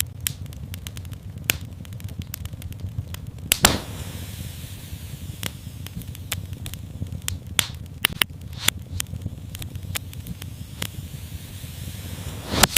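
Wood fire in a fireplace crackling: frequent sharp irregular pops over a low steady rumble, with two louder pops about four seconds in and near the end. A faint high hiss follows the first loud pop.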